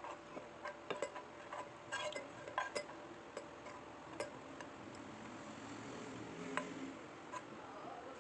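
Light, irregular clicks and clinks of utensils against dishes, busiest in the first three seconds, with one sharper clink about six and a half seconds in.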